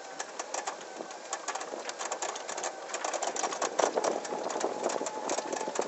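Electric go-kart conversion driving over grass: a faint whine from the Motenergy ME0709 electric motor and quiet belt drive, under irregular rattles and clicks from the chassis jolting over the rough ground. There is no chain or sprocket noise.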